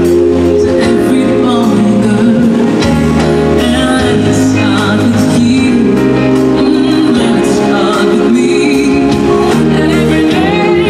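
Loud holiday music with singing, played over the show's sound system.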